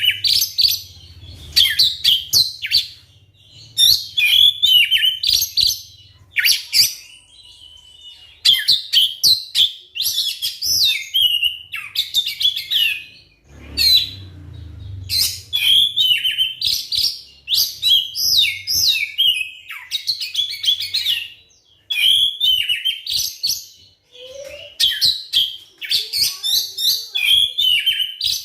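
Oriental magpie-robin singing: loud, fast phrases of whistles and chattering notes, each a second or two long with short pauses between, over a faint low hum at times.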